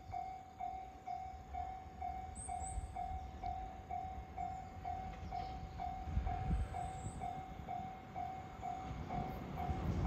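Japanese level-crossing alarm ringing an even electronic ding, just under three a second, as a 521-series electric train approaches, its low rumble growing louder towards the end.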